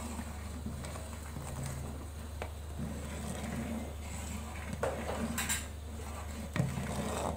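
Long steel ladle stirring a thin gram-flour and yogurt kadhi mixture in a steel cooking pot, knocking and scraping against the pot's side a few times over a steady low hum.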